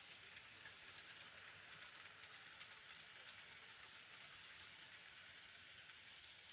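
Two Bachmann Branchline model locomotives running on the layout track, faint: a steady hiss of motors and wheels with many small irregular clicks.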